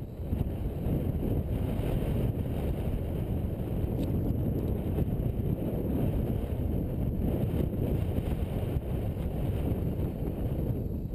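Wind buffeting the microphone: a steady low rumble with no engine or motor tone in it.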